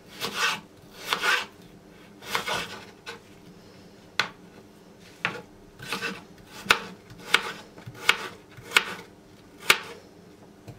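Kitchen knife cutting a raw potato on a wooden cutting board: a few longer drawn cuts at first, then a regular run of sharp knocks of the blade on the board, about one and a half a second, as the potato is diced into cubes.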